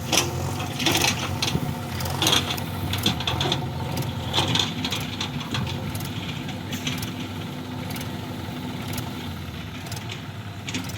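Heavy machinery engine running steadily, with irregular metallic clanks and rattles mostly in the first half.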